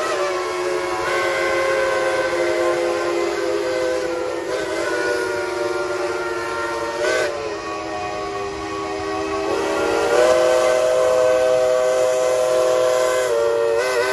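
Steam whistles of geared steam locomotives blowing long, overlapping blasts, several tones sounding at once as a shifting chord, with a hiss of steam under them. The whistling grows louder about ten seconds in, as a new set of tones comes in.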